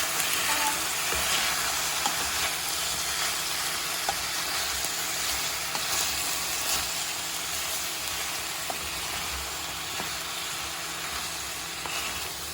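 Food frying in a pan, a steady sizzle with a few light clicks scattered through it.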